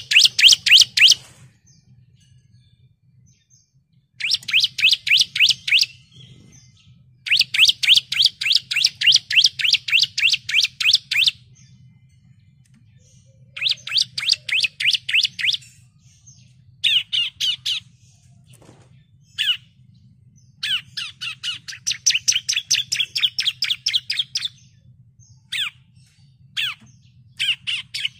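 Bar-winged prinia (ciblek) singing: about ten bursts of fast, repeated high chirping notes, some lasting up to about four seconds and others only a single brief note, with short pauses between. A faint low hum runs underneath.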